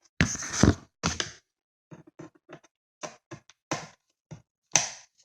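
Knocks and clicks from handling laptop parts and driving screws with a screwdriver: a loud clunk or two in the first second, then a run of light taps and clicks, and another sharp knock near the end.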